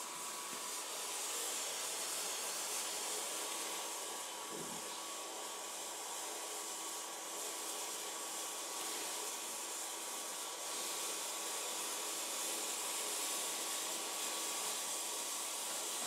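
Steady, even hiss with a faint steady hum, unchanging throughout, and a soft low bump about four and a half seconds in.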